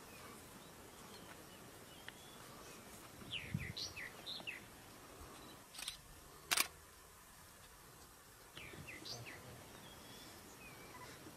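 Small birds give short runs of quick high chirps twice over a steady outdoor background hiss. Between the runs come two sharp clicks; the second click is the loudest sound.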